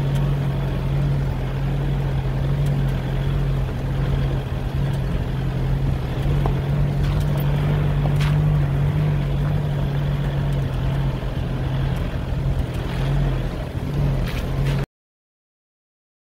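A 4x4's engine droning steadily while driving on a gravel road, with road and tyre noise and a few sharp clicks and knocks. It cuts off abruptly near the end.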